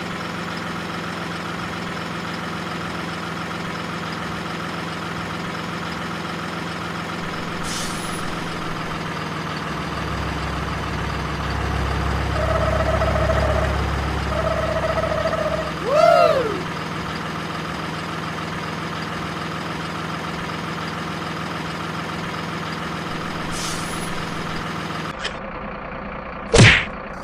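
Truck engine idling steadily, with a deeper rumble swelling up in the middle and two short beeps, then a brief swooping tone. A sudden loud sound comes near the end.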